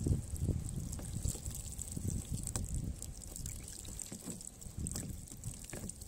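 Water pouring and trickling from a loose drain plug on a water trough, which is not seated on its thread. The flow eases off across the seconds, with a few clicks.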